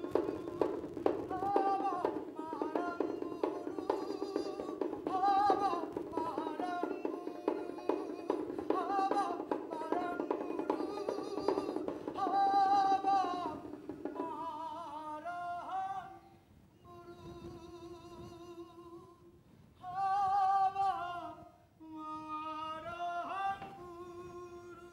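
Live stage music: a voice singing a wavering, ornamented melody over a low held drone, with rapid percussive taps and clicks. About fourteen seconds in, the percussion stops and the singing goes on in phrases over the steady drone.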